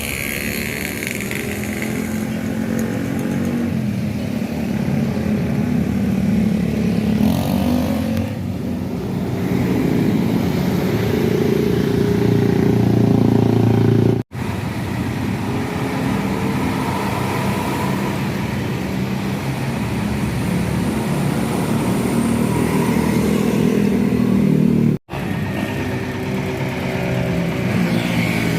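Road-vehicle engines running steadily and accelerating, swelling and rising in pitch about halfway through. The sound drops out for an instant twice.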